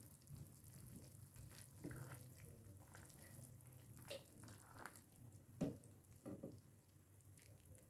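Near silence with a few faint knocks and clinks from kitchen handling; the clearest one comes about five and a half seconds in.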